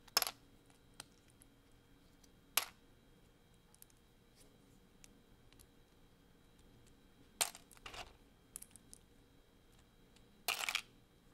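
LEGO plastic bricks being pulled apart and handled: a handful of sharp plastic clicks and snaps several seconds apart, ending in a short quick cluster of clicks near the end.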